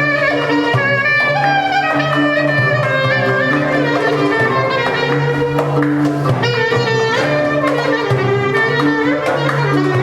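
Instrumental Turkish oyun havası dance music in makam hicazkar: a wind-instrument melody with ornamented slides over a steady, repeating bass and rhythm accompaniment.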